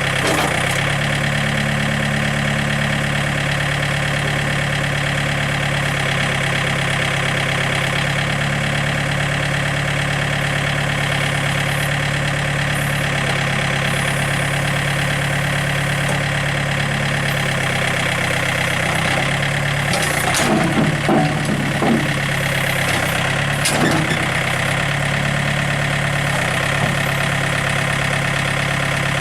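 Diesel engine of a 2005 John Deere 110 4x4 loader-backhoe idling steadily. A few louder knocks and rattles come through about twenty to twenty-two seconds in and again near twenty-four seconds.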